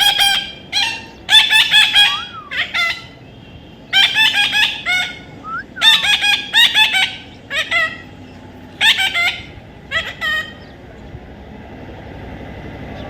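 A parrot giving loud, harsh calls in repeated bursts of several quick notes. The calls stop about ten and a half seconds in.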